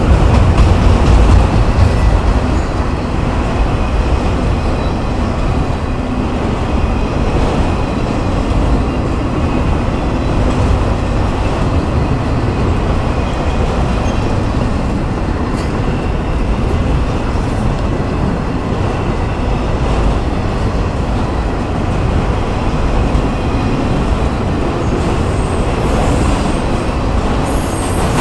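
Autorack freight cars rolling past close by: a steady rumble and rattle of steel wheels on the rails, a little louder in the first couple of seconds, with faint high wheel squeal coming and going.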